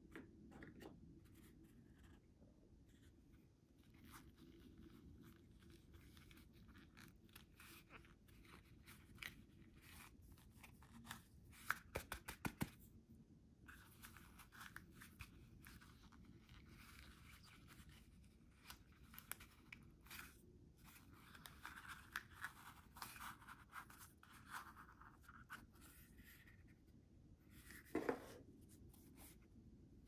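Handling of a small cardboard keycap box and its foam insert: soft rubbing and scraping of card and foam with scattered small ticks. There is a quick run of sharp clicks about twelve seconds in, a longer stretch of rubbing after it, and a sharper tap near the end.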